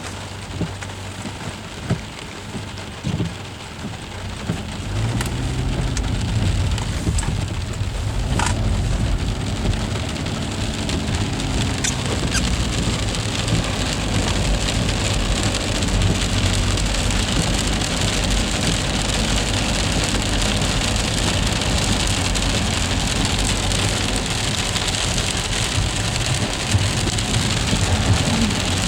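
Freezing rain and sleet of an ice storm pattering down as a steady hiss, with a few sharp ticks early on; about five seconds in it grows louder and a steady low rumble joins it.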